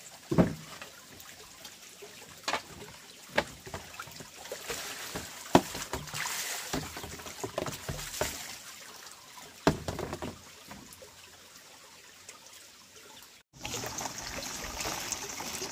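Water trickling and splashing while things are handled in it, with several sharp knocks of containers. Near the end, after a brief break, a steadier flow of water runs.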